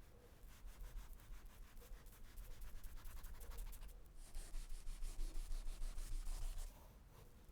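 Knife blade scraping and rubbing in quick repeated strokes. It grows louder and hissier about halfway through, then eases off near the end.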